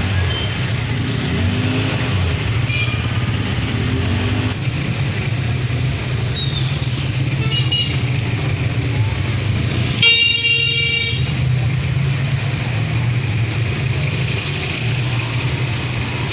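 Street traffic: vehicle engines running steadily, with a loud car horn sounding once for about a second about ten seconds in and fainter short toots earlier.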